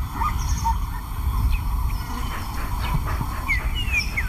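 Bush ambience: a steady low rumble, with a few short gliding bird chirps near the end.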